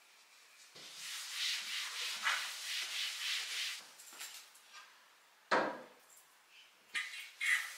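Small items being handled and set down on a bathroom countertop: rustling from about one to four seconds in, one sharp knock about five and a half seconds in, then two light clicks near the end.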